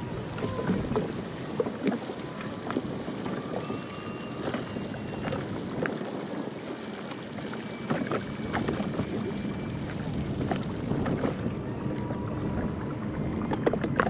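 Motorboat under way across open water: a steady engine drone under water splashing and slapping against the hull.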